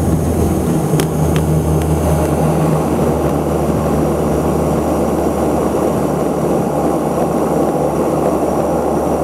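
Cabin noise of an Antonov An-24's Ivchenko AI-24 turboprop engines during the landing roll: a steady low propeller drone with rumble under it. Two light clicks come about a second in, and one low tone in the drone fades out about three seconds in.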